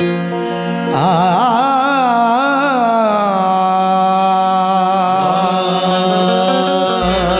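Qawwali singing: a male lead voice comes in about a second in with an ornamented, wavering alaap, then settles into one long held note. Beneath it sounds a steady drone from the accompanying harmonium.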